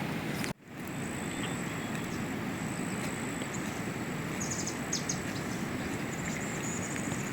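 Steady rushing outdoor noise, broken by a brief dropout about half a second in, with a thin steady high whine over it and a few short high chirps a little past the middle.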